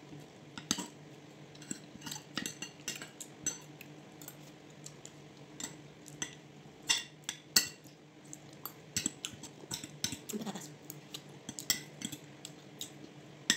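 Metal fork and spoon clinking and scraping against a plate while eating, in irregular sharp clicks, over a steady low hum.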